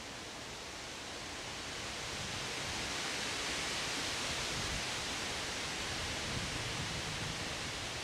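Strong wind gusting through leafy treetops: a steady rushing hiss of leaves that swells over the first few seconds, holds, then eases slightly near the end, over a low rumble.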